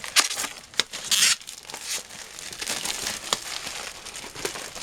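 Wrapping on a power supply box crinkling and tearing as it is pulled off, in irregular rustles with a few sharp clicks; the loudest rustles come just after the start and about a second in.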